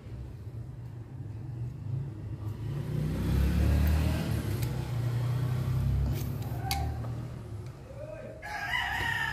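A rooster crows near the end, one drawn-out call that bends in pitch. Before it, a low rumble swells and fades through the middle, with a few light clicks as pliers crimp a copper terminal lug onto the wire.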